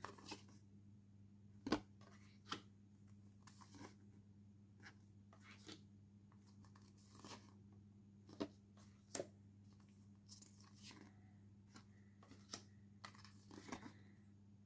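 Paper postcards handled and shuffled by hand: soft slides of card against card and scattered light clicks and taps, about one every second or so, over a faint steady low hum.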